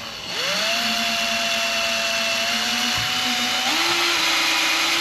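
Electric drill spinning up and running steadily while boring a hole through the side of a motorcycle tour pack for a cable grommet. Its pitch steps up a little near the end.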